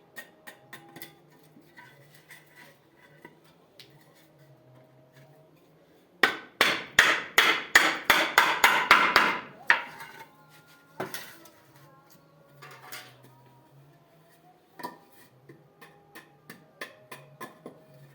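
A quick run of about a dozen sharp hammer blows lasting some three and a half seconds, the loudest sound here, with a few single knocks after it. Soft background music plays throughout.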